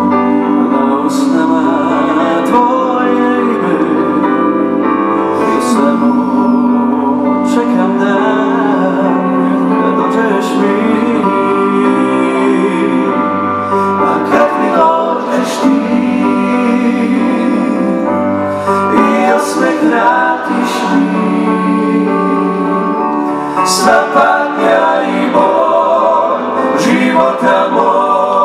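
Male vocal group singing in close harmony live over an amplified band with keyboard and drums, with sharp cymbal or snare hits every few seconds.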